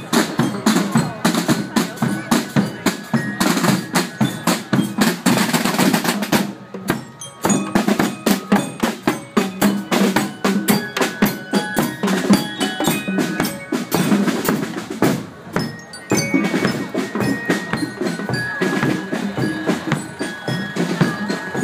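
Marching band going past: drums beating a steady march rhythm with glockenspiel notes ringing over them. The drumming breaks off briefly twice.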